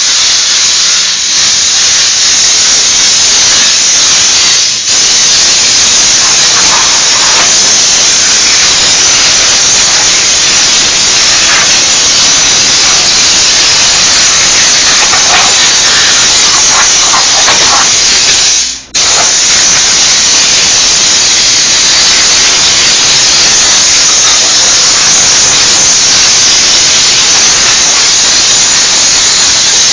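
Diesel steam cleaner's wand spraying steam with a loud, steady hiss. It breaks off for a moment about two-thirds of the way through, then resumes.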